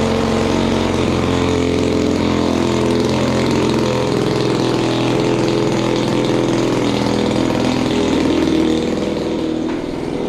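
EME 35cc two-stroke gas engine on a model airplane running steadily, spinning its propeller; the engine is new and not yet broken in. The sound breaks off near the end.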